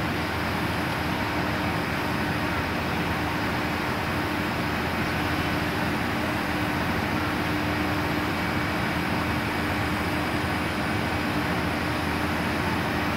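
Tower ladder fire truck running its engine to drive the aerial's hydraulics as the platform is lowered: a steady mechanical drone with one constant hum.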